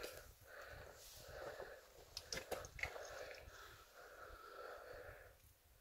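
A person's faint breathing close to the microphone, in and out in soft, regular swells, with a few small clicks about two seconds in.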